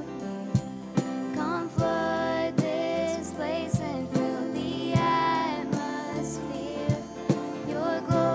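Live worship band: two female vocalists singing a slow chorus over a steady cajon beat and electric bass.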